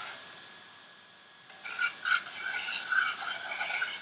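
A spoon stirring and scraping around inside a stainless steel saucepan, dissolving gelatin into the hot coffee mixture. It starts about one and a half seconds in and continues unevenly, with scrapes of varying loudness.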